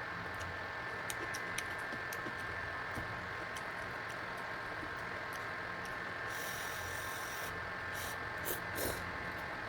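Electric fan running with a steady hiss and a faint two-tone motor whine, with scattered small clicks and a brief high hiss about six seconds in.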